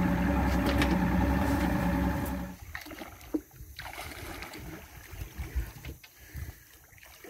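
Boat's 200-horsepower outboard motor idling steadily, cut off abruptly about two and a half seconds in. What follows is much quieter river water with low, irregular rumbles.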